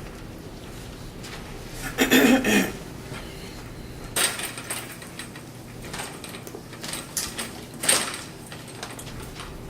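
Handling noise of hard objects: a rough clatter about two seconds in, then a few sharp knocks with a brief ring and some lighter ticks, as a display chart is moved and set up.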